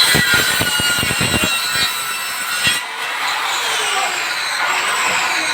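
Construction work sounds: a quick run of sharp knocks for about the first second and a half, over a steady high-pitched grinding noise with shifting whining tones, like a saw or power tool cutting.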